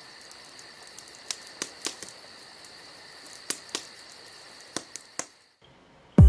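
Insects chirring steadily, a high-pitched hum with a fast even pulse, with several sharp clicks scattered through. It fades out about five and a half seconds in, and a deep bass hit of music comes in at the very end.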